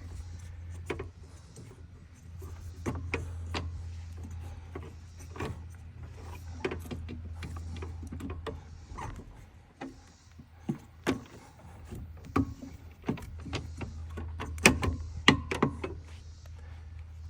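Scattered clicks and knocks of hand tools and metal parts being handled while working on a walk-behind mower's drive, over a steady low hum. Two sharp knocks about fifteen seconds in are the loudest.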